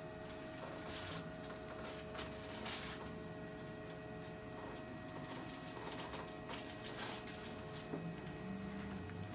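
Handling noise of a chiropractic adjustment on a treatment table: scattered short rustles, swishes and clicks of hands, clothing and table, over a steady faint hum.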